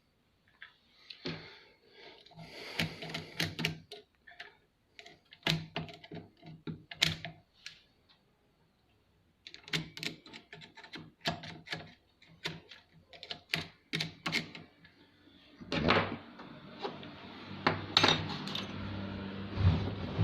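Small metal parts of a Singer sewing machine clicking and clattering as they are handled, unscrewed and lifted off during disassembly, with a pause around the middle. Near the end a steadier low hum with rattling joins the clicks.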